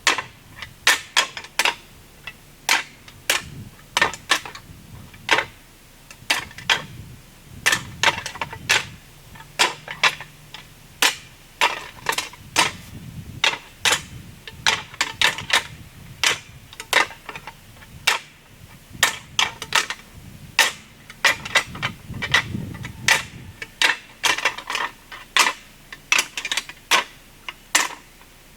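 A long run of sharp, irregular clicks or taps, about one to two a second, over a faint low hum.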